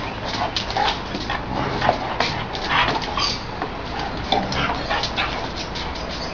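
A Great Dane and an American Staffordshire terrier playing nose to nose, making a run of short scuffling and snuffling noises with an occasional small whine.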